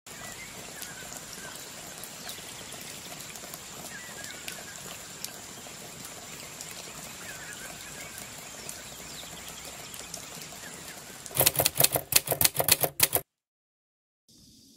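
Outdoor ambience with a steady high insect-like whine and a bird chirping briefly three times. About eleven seconds in, a loud, rapid run of sharp typewriter-like clicks lasts about two seconds and stops abruptly.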